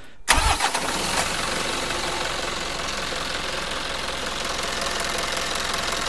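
Mitsubishi Fuso 4M50 four-cylinder common-rail turbodiesel running steadily at idle, cutting in abruptly about a third of a second in. It is running for an injector return-flow (back-leak) check.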